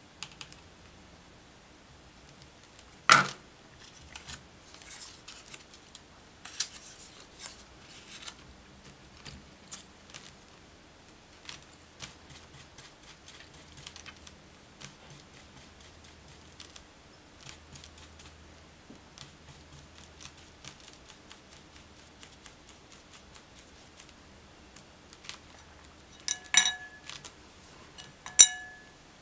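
Small tabletop handling sounds during watercolour work: a sharp metallic click about three seconds in as metal tweezers are set down, then faint ticks and rustles of a brush on crepe paper. Near the end a paintbrush knocks twice against a ceramic paint plate, two ringing clinks, the second the loudest.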